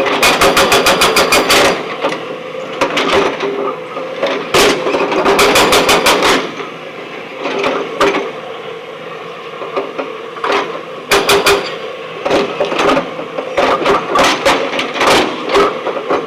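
Hydraulic rock breaker on a backhoe loader hammering stone in bursts of rapid blows, about eight a second, stopping and starting several times over the steady running of the machine.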